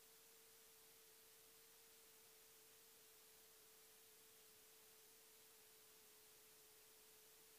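Near silence: faint hiss with a faint, steady, unwavering mid-pitched tone that holds one pitch throughout.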